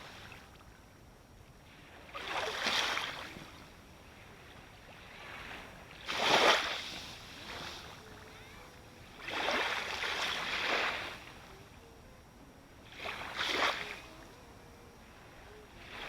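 Ocean waves breaking close up on the shore: four surges of rushing, splashing water, each swelling and fading over a second or two, with a low steady wash between them.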